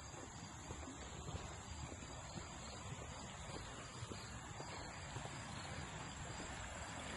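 Faint steady high-pitched insect trilling, over a low rumble.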